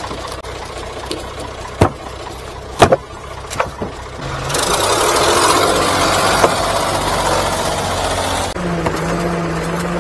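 Split firewood logs tossed onto a load of wood, knocking wood on wood a few times over an idling engine. Then a loud rushing noise for about four seconds that cuts off suddenly, followed by a steady engine hum.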